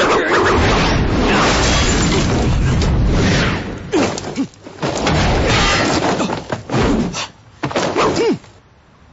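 Film fight-scene sound effects: a dense run of crashing, smashing impacts, broken by a couple of short gliding sounds. Everything falls away about a second before the end.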